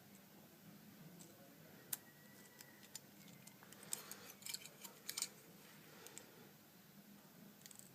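Faint small clicks and ticks from handling phone parts while a digitizer ribbon cable is fed through a phone frame: one click about two seconds in, then a quick cluster of ticks a little past the middle, over a low room hum.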